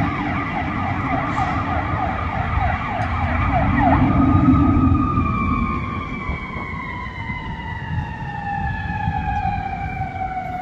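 Siren of a 2021 Spartan Metro Star fire rescue truck on an emergency run, going in a fast yelp and switching about four seconds in to one long wail that falls slowly in pitch and fades as the truck pulls away. The truck's engine rumbles underneath, loudest just as the siren changes.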